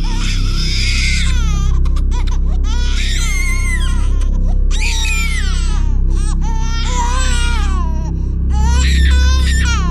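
A baby crying in repeated wailing cries, about five in a row, each about a second long, over a steady low music drone.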